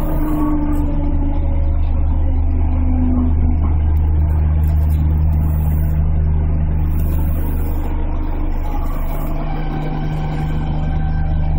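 Interior sound of a JR 211-series electric commuter train heard from the front cab while moving slowly: a steady low hum and rumble from the motors and running gear.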